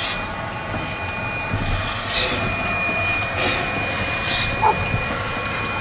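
NM class steam locomotive moving slowly, its exhaust chuffing about once a second over a steady rumble and hiss, with a single short clank near the end.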